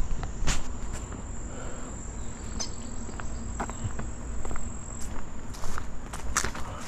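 Steady high-pitched insect trill, like crickets or katydids, with footsteps and scattered light clicks on a concrete ledge.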